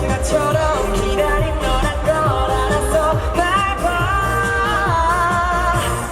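K-pop song performed live: male vocals singing over a steady pop backing beat.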